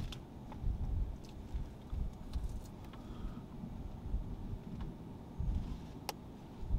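Wind buffeting the microphone outdoors: an uneven, gusting low rumble, with a sharp click about six seconds in.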